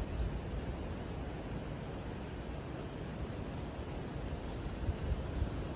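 Steady outdoor noise with a low, gusty rumble of wind on the microphone, and a few faint, short bird chirps.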